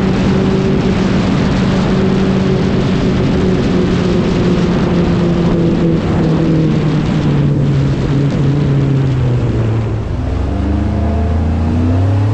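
Motor vehicle engine running with a steady hum whose pitch slowly sinks, then a second engine rising in pitch near the end, over a constant rushing noise.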